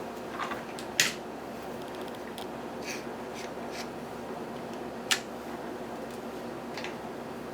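Scissors snipping, with two sharp clicks, one about a second in and one about five seconds in, and a few fainter ticks, over a steady low hum. The scissors are most likely trimming the sling's lying mat where it presses on the bird's crop.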